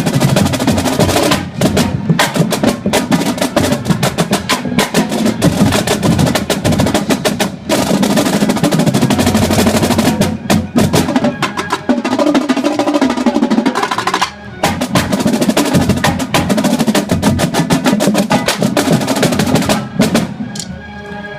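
Fast percussion, a rapid run of drum-like strokes like a drum roll, with two brief breaks.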